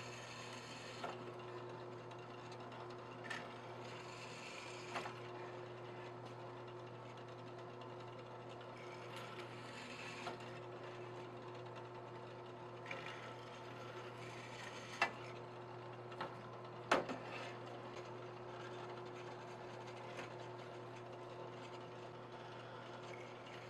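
Benchtop drill press motor running with a steady hum, its bit cutting into metal several times in short spells of grinding hiss, with a few sharp knocks.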